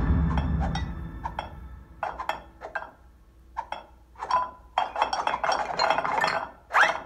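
Film sound effects played through cinema speakers: ceramic garden gnomes clinking and clattering as they pile up. The clinks come sparsely at first and grow into a dense clatter, then a short rising swoosh comes near the end.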